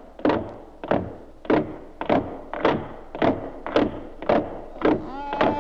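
Slow, steady beat of hollow knocks, a little under two a second, each strike ringing briefly. A held, pitched tone comes in near the end.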